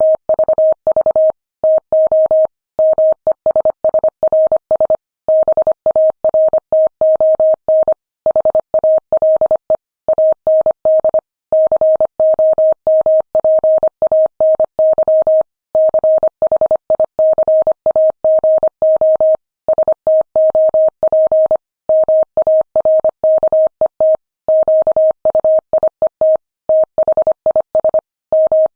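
Morse code sent at 25 words per minute: a single steady mid-pitched tone keyed on and off in quick dots and dashes, with short silent gaps between words.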